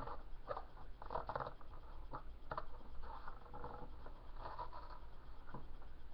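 Scissors cutting the flap off a thin paperboard box: a run of short, irregular snips with rustling as the box is handled.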